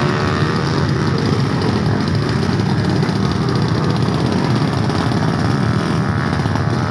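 Several drag racing motorcycles idling together at the start line, a loud, steady engine sound.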